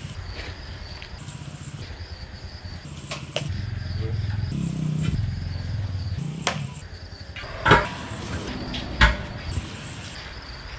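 Low engine rumble that swells and shifts in pitch for a few seconds in the middle, with two sharp knocks about a second and a half apart near the end; insects chirp throughout.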